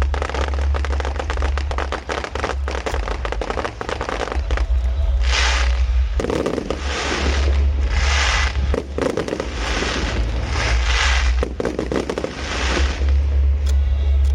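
Fireworks going off: dense crackling for the first five seconds or so, then a string of short hissing rushes about a second apart, over a steady low rumble.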